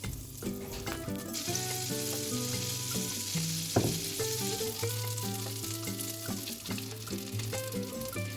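Food frying in hot oil in a pan, a steady sizzle that swells up about a second and a half in, with stirring and one sharp knock against the pan a little before the midpoint.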